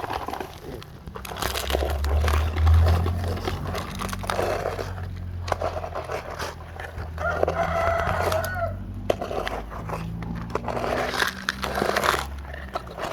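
A rooster crows about eight seconds in, over a steady low engine hum and scattered knocks.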